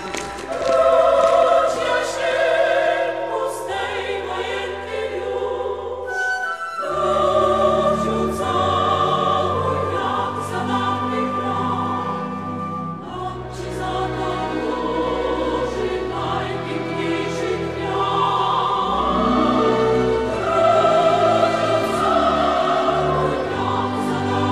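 Choir singing slow, sustained lines over instrumental accompaniment with long held bass notes; the music changes chord or phrase about six and a half seconds in.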